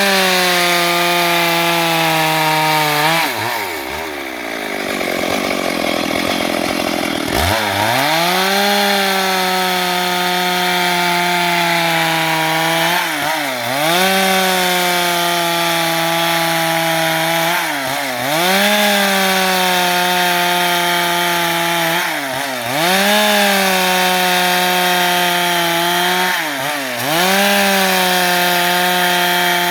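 Stihl MS 382 two-stroke chainsaw ripping planks from wood, running at high revs under load. The engine note drops sharply and climbs back about every four to five seconds, with a longer stretch a few seconds in where it runs lower and rougher.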